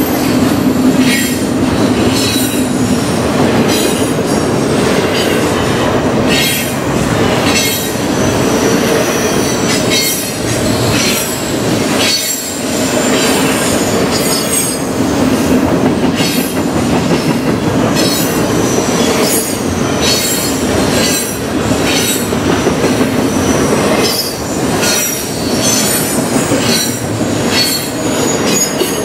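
Container freight train rolling past at a grade crossing: a steady rumble of wheels on rail, clacks every second or so as wheelsets pass over joints, and a high squeal from the wheels.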